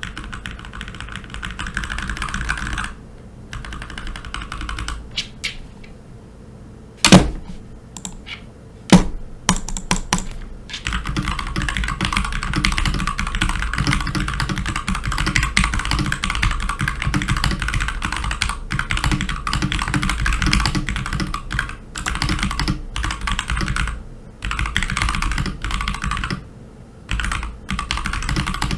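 Mechanical keyboard being typed on fast and steadily. Its Kailh Box Pale Blue switches are modified so the click bar is bypassed, leaving them unclicked. The typing thins out about three seconds in, two loud knocks come about seven and nine seconds in, and dense typing resumes about eleven seconds in.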